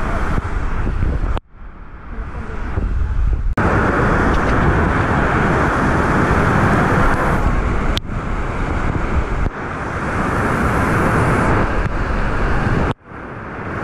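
Water falling and splashing from a waterfall into a pool, a loud, steady rush of noise heard close to the camera. It cuts out abruptly about a second and a half in and again near the end, then comes back.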